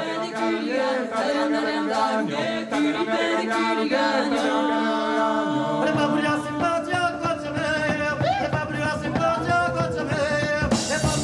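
A woman sings an Occitan song live with a small band. She is lightly accompanied at first, and the low end and percussion of the band join about five and a half seconds in.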